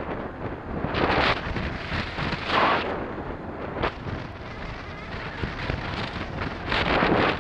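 Wind buffeting a helmet-mounted camera's microphone on a moving motorcycle, a rushing noise that swells in uneven gusts, loudest about a second in, two and a half seconds in and near the end.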